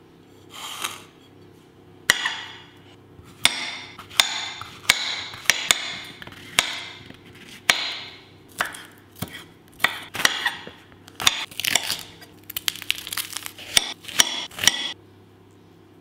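Chef's knife slicing zucchini on a cutting board: about twenty cuts at an uneven pace, each a sharp tap with a short rasp, stopping about a second before the end.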